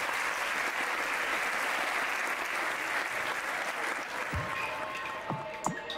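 Audience applauding in a theatre. Near the end the applause thins out and music starts, with deep bass thumps and a few steady notes.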